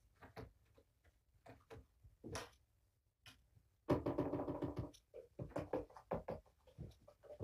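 A hand rubbing over a plastic board, squeaking for about a second midway, amid soft scattered scratches and taps.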